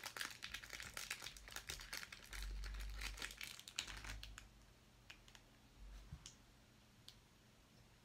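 Crinkling and rustling of plastic handled while picking out a piece of heat-shrink tubing. There are a few dull bumps in it, and after about four seconds it thins to a few light clicks.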